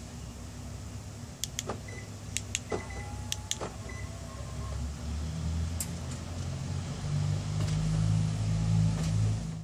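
Kia K7 (Cadenza) car body electrics: a string of sharp actuator clicks with a few faint short beeps, then a low motor hum that grows louder from about halfway in.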